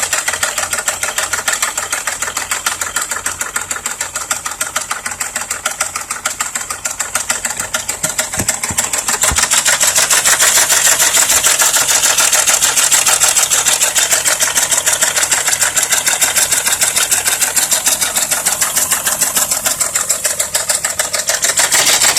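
Volkswagen VR6 engine running with a rapid, steady mechanical knocking clatter, getting louder about halfway through. The owner suspects a bent valve or a damaged piston; the car also reports a faulty crankshaft sensor.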